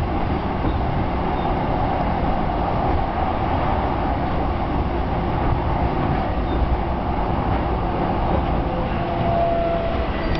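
Keihin-Tohoku line commuter train heard from inside the car while running on elevated track: a steady rumble of wheels and running gear. A thin steady tone joins in near the end.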